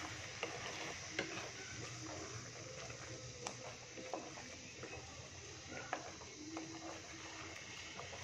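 Wooden spatula stirring thick chicken gravy in a pot, with a few short irregular knocks and scrapes against the pot over a steady low hiss.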